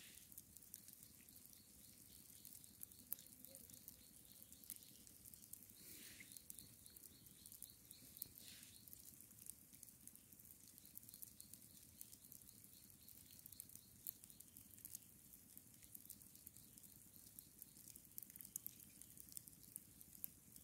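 Near silence: faint outdoor ambience with light, scattered high-pitched crackling and a faint repeated high chirping during roughly the first half.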